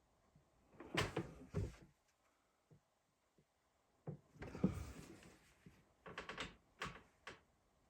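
Handling noises in three short bursts: rustling with a few sharp knocks, as of a sewn quilt block and things on the sewing table being moved about.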